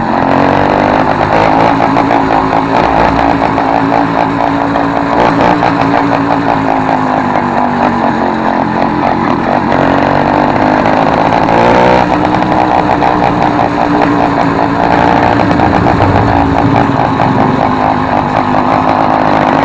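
Motorized bicycle's small two-stroke kit engine running loud through an exhaust opened up with a soda-can lid in place of the original tip, the revs rising and falling under throttle; the pitch drops and then climbs again about twelve seconds in.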